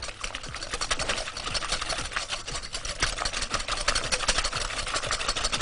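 Metal wire whisk beating eggs and sugar by hand in a glass bowl: a rapid, steady clatter of the wires against the glass.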